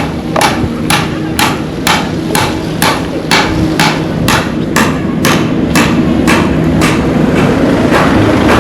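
A steady run of sharp knocks or slaps, about two a second and evenly spaced, heard over a low background rumble.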